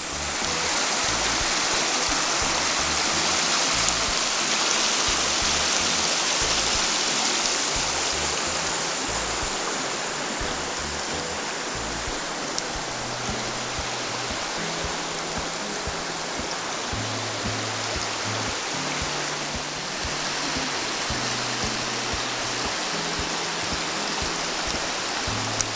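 River water rushing over rocks in a shallow rapid, a steady loud rush that eases slightly about halfway through. Music with a low bass line plays underneath.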